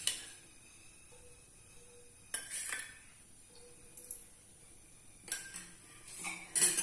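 Steel ladle clinking against a steel bowl and the rim of a cooking pot as oil is ladled in. There is a clink at the start, more about two and a half seconds in and around five seconds, and a louder cluster near the end.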